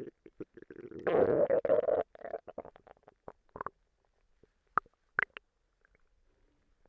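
Human stomach gurgling: a loud bubbling rumble lasting about a second, starting a second in, then a scatter of small pops and two short, higher-pitched gurgles near the five-second mark.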